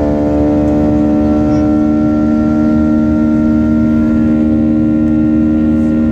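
Airliner engines droning inside the passenger cabin: a steady, loud hum of several held tones over a low rumble, with no change in power.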